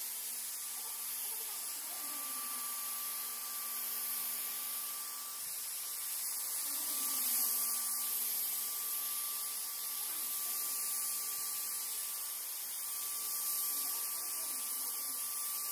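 Handheld electrostatic sprayer running steadily, a constant motor hum under the hiss of disinfectant mist being sprayed.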